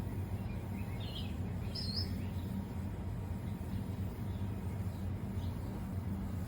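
A few short, high bird chirps, clustered about a second in and again faintly near the end, over a steady low background rumble.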